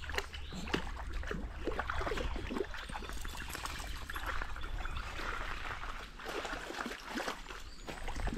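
River water trickling and gurgling over shallows, in an uneven stream of small splashy sounds.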